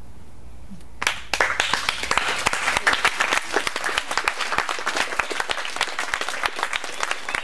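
Audience applause breaking out suddenly about a second in and going on as dense, continuous clapping.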